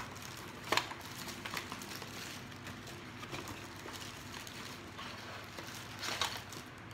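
Hands opening and handling a plastic penguin toothpick dispenser and its packaging: rustling with a few sharp clicks, one just under a second in and a cluster near the end.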